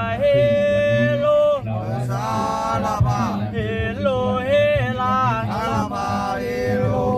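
A man's voice chanting a sung invocation to Mae Ya Nang, the guardian spirit of a Thai longboat, in several long, wavering held notes with short breaths between phrases.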